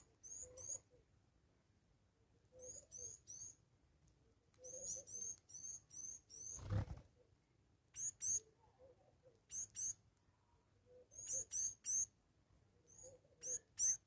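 Blue waxbills giving thin, high-pitched "tsee-tsee" calls: short rising notes in quick pairs and triples, repeated every second or two. A soft low thump about halfway through.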